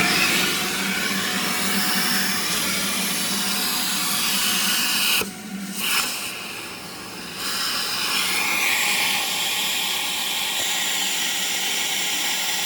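Vacuum cleaner running, sucking air through a length of PVC pipe reaching into a pickup engine's valley: a steady rushing hiss over a low motor hum. About five seconds in the sound drops in level briefly, then again for about a second, as the airflow through the pipe changes.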